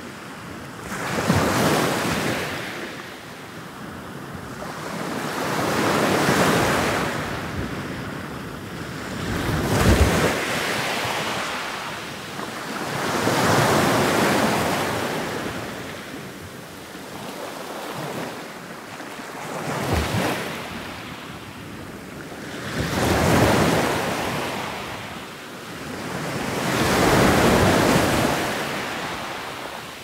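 Ocean surf: waves breaking one after another, each surge swelling and then washing away, about eight in all, several beginning with a sudden heavy break.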